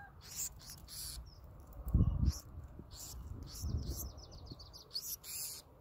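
Black-throated sparrows giving a string of short, high chirps, about two a second, with a low thump about two seconds in and another near four seconds.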